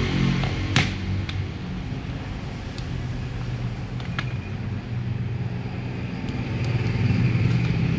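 A steady low engine rumble that grows louder near the end, with a few sharp metal clicks of a hand tool against an air-conditioning compressor's clutch hub. The loudest click comes just under a second in.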